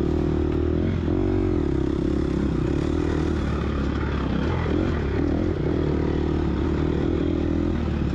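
Gas Gas EX250F dirt bike's 250 cc four-stroke single-cylinder engine running steadily under load, its revs dipping and rising as the throttle is worked, around a second in and again about five seconds in.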